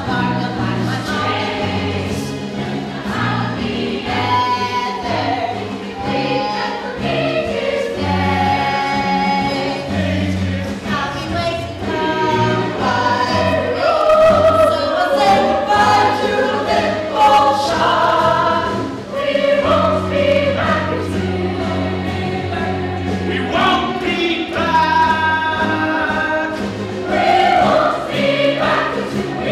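A cast chorus singing a musical-theatre song with instrumental accompaniment and a bass line that moves in steady blocks of notes.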